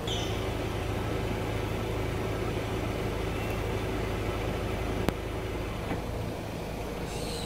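A steady low mechanical hum with a constant pitch, like an engine idling. A short high chirp comes at the start and again near the end.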